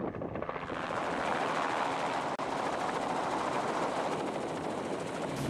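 Small Robinson piston helicopter, its main rotor beating in a fast, even chop. The sound builds over the first second, then holds steady.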